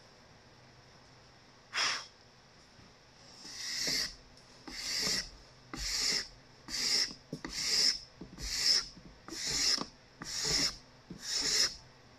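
Steel card scraper taking fine shavings off a cedar board already sanded to 220 grit. About ten short, high-pitched scraping strokes: one about two seconds in, then a steady run of roughly one a second.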